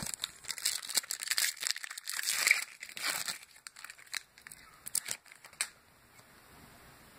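Trading-card pack wrapper crinkling as it is torn open by hand and the cards are pulled out, a run of sharp crackles that stops a little over five seconds in.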